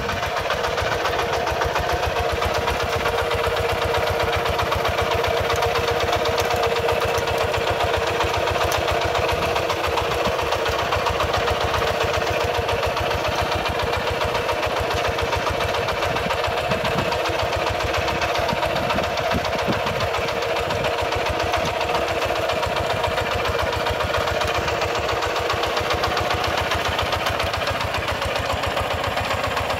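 Kubota RT140 walking tractor's single-cylinder diesel engine running steadily with a fast, even chug as it pulls its trailer cart.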